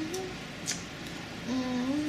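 Squeaky, pitched fart sound effects, each rising in steps: one tails off just after the start, and a second begins about one and a half seconds in. A short click comes in between.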